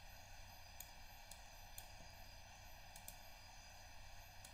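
Near silence: faint steady room tone with hiss and low hum, and a few faint scattered clicks.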